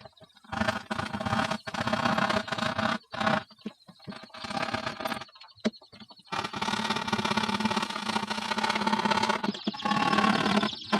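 Electric power drill running in short stop-start bursts on a speaker box, then running steadily from about six seconds in.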